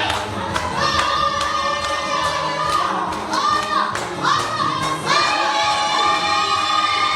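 A group of voices singing together, with high voices sliding up and down over the top and a few sharp claps in the first second.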